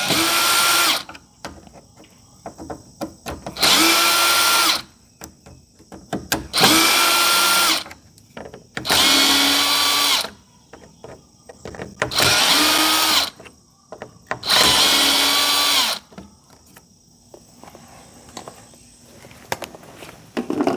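Power drill backing screws out of a door's handle hardware in six separate runs, each spinning up, holding a steady whine for about a second, then winding down. Small clicks follow near the end.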